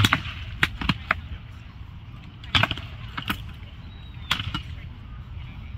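Sharp knocks of tape-wrapped rattan swords striking shields and armour in armoured sword combat, coming in quick clusters: a loud blow right at the start, three more within the next second, then a few more around the middle and near the end.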